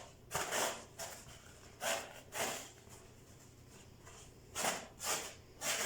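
A brush scrubbing dust off a vacuum cleaner's cloth bag in short rubbing strokes, a few at a time, with a pause in the middle.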